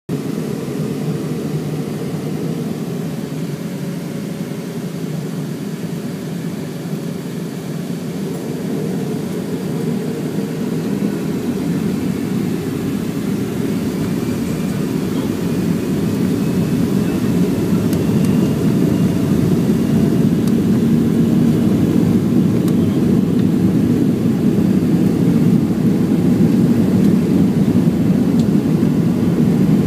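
Airliner cabin noise heard from a passenger seat: a steady low rumble of engines and wheels rolling on the runway, growing steadily louder over the second half as the plane speeds up, with a faint rising whine around the middle as the engines spool up.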